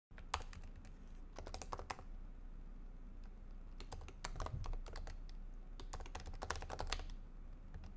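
Typing on a computer keyboard: quick keystrokes in four short bursts with pauses between them.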